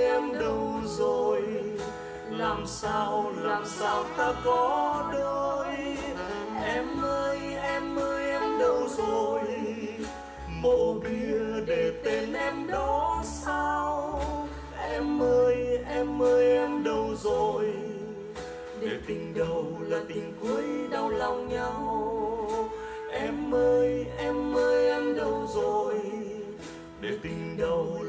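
Vietnamese ballad music: a wavering melody line over a bass and chord backing, with no sung words recognised.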